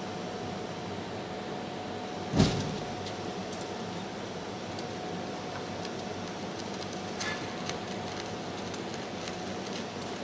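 Gas stove burner hissing steadily under a saucepan of milk tea at a rolling boil, with small clicks and ticks of bubbling in the second half. A faint steady tone runs under it, and a single loud thump comes about two and a half seconds in.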